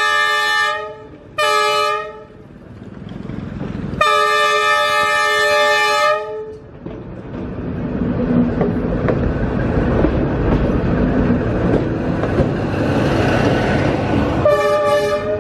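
Diesel locomotive air horn sounding two short blasts, then one long blast of about two seconds. The train then passes close by with a steady rumble and clatter of wheels on the rails, and the horn gives another short blast near the end.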